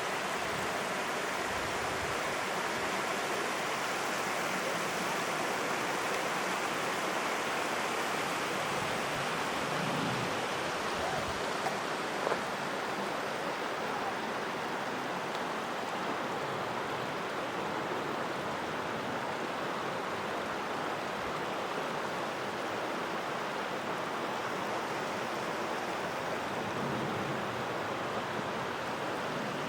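Steady rush of running water, a creek or small cascade, an even hiss with no breaks.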